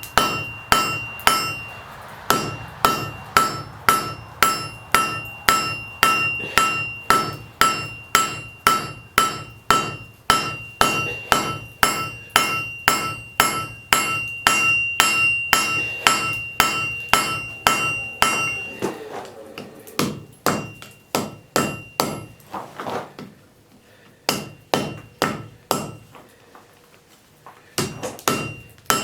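Forging hammer striking iron on an anvil, about two to three blows a second, each with a high ring. About two-thirds of the way through the ringing drops away and the blows turn softer and sparser, with a short lull before steady hammering resumes near the end.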